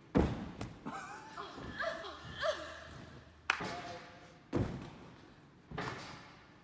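Thuds of gymnasts bouncing on a tumble track and landing on a crash mat: several dull impacts, the loudest just after the start and others about 3.5, 4.5 and 6 seconds in.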